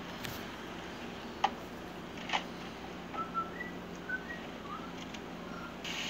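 Someone whistling short, scattered notes in the background, with a couple of sharp knocks. Near the end a kitchen tap starts running, with a steady hiss of water.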